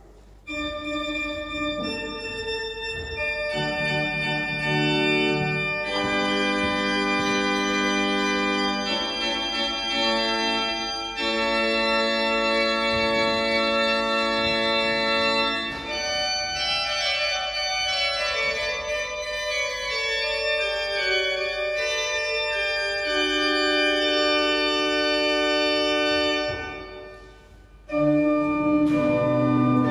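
Church organ playing a hymn tune in held chords that change every second or two. The sound falls away near the end and comes back a moment later.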